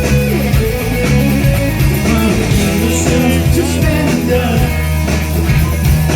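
Rock band playing live: electric guitars, bass and drums, with a male voice singing.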